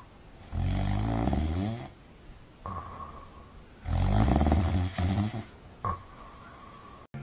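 Bulldog snoring in its sleep: two long, rattling snores about three seconds apart, with quieter snuffling breaths between them.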